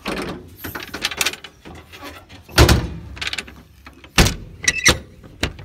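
Steel compartment doors of a truck's utility service body being handled and shut, with rattling and scraping and then a few sharp clunks of doors and latches, the loudest about two and a half seconds in. A brief squeak comes just before the later clunks.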